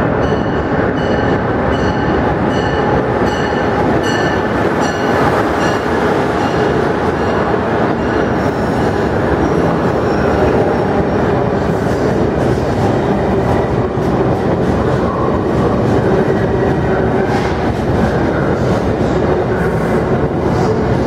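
Amtrak passenger train with Amfleet coaches pulling into the station and rolling past, a steady heavy rumble of wheels on rail with scattered clacks and squeals. A bell dings about twice a second at first and fades out after about six seconds.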